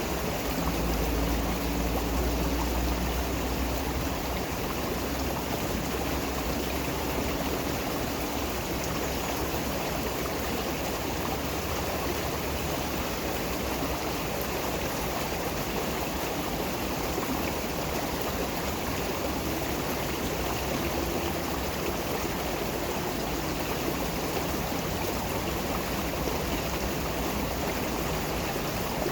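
Running water of a stream, a steady even rushing with no pause, with a deeper low rumble in the first few seconds.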